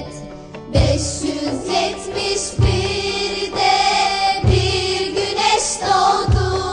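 Children's choir singing a song over an instrumental backing, with a low drum beat about every two seconds.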